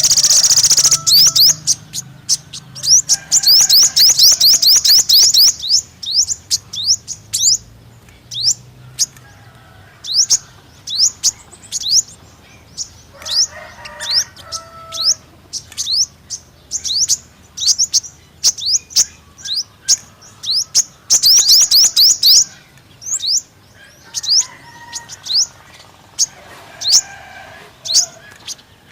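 Five-coloured sunbird calling: sharp, high chirps, sometimes run together into fast chattering trills and sometimes given singly with short gaps.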